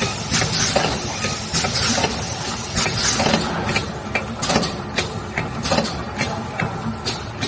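A dishwasher powder capsule packaging machine running, with a continuous mechanical clatter and many sharp clicks, several a second.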